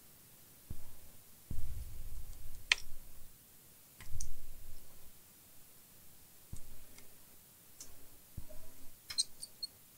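A few scattered sharp clicks and soft low bumps from small objects being handled, over quiet room tone.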